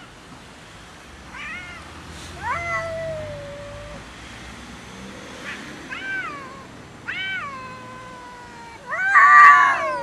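Cat yowling in about five drawn-out calls that fall in pitch and trail off, the last near the end the loudest and harshest. It is a cat's protest at another cat that is guarding the food.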